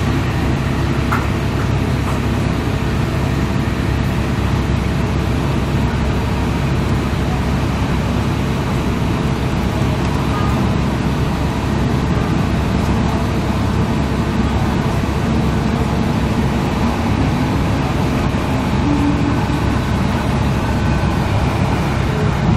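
Steady interior noise of a diesel multiple unit running at speed: the engine's low drone and the wheels rolling on the rails, at an even level throughout.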